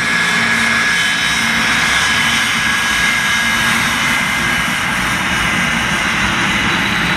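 Saab J35 Draken's single Volvo RM6 afterburning turbojet running at low taxi power as the fighter rolls along the runway. It makes a steady jet roar with a high turbine whine on top.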